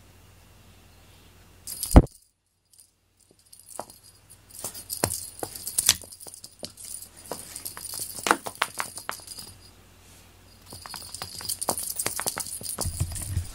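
Small bell on a feather wand cat toy jingling and rattling in quick irregular clicks as the toy is jerked and dragged over a foam floor mat. A sharp thump about two seconds in is the loudest sound, and there is a short lull near the end before the jingling picks up again.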